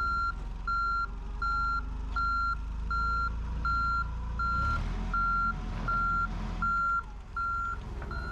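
Clark forklift's backup alarm beeping steadily in even pulses, roughly three beeps every two seconds, over the forklift's running engine as it reverses. The engine works harder about halfway through.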